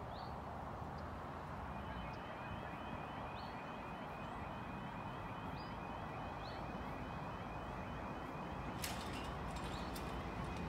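A British level crossing's warbling 'yodel' warning alarm comes in about two seconds in and repeats steadily as the crossing closes and the barriers begin to lower. It plays over a steady low background rumble, with a few sharp clicks near the end.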